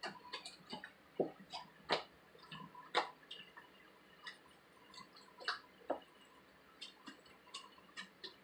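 Freshly activated glue slime being kneaded and stretched by hand, giving irregular sticky, wet clicks and pops as air bubbles trapped in it burst.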